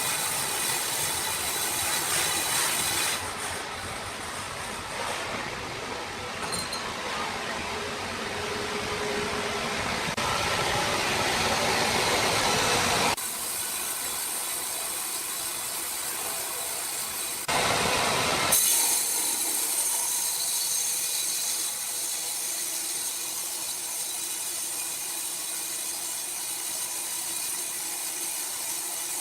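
Sawmill machinery running with a large saw cutting through logs: a steady mechanical noise that changes abruptly several times.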